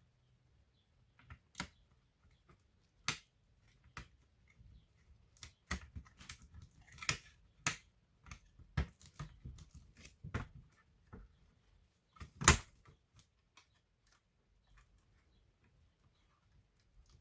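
Irregular clicks and taps of laptop parts and tools being handled during disassembly or reassembly, busiest in the middle, with one louder knock about two-thirds of the way through.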